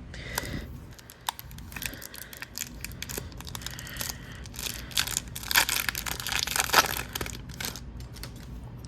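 A foil hockey card pack being torn open, its wrapper crinkling and crackling as the cards are pulled out, with the rustle busiest about five to seven seconds in.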